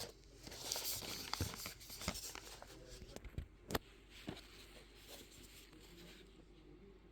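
Unboxing handling of a smartwatch box: rustling of packaging with several sharp clicks and taps, the loudest a little under four seconds in, then settling to faint handling.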